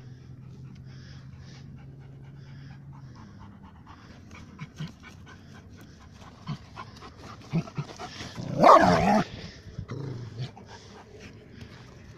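A Rottweiler puppy panting and scraping at the dirt with its front paws as it digs. About nine seconds in it gives one short, loud growl.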